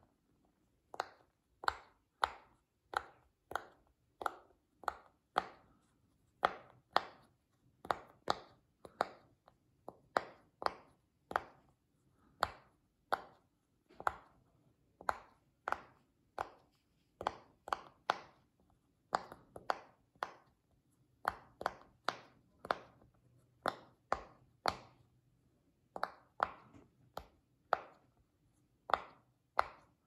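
Rainbow silicone pop-it fidget toy bubbles being pressed in with a finger one after another, each giving a sharp pop, about two a second with a few short pauses.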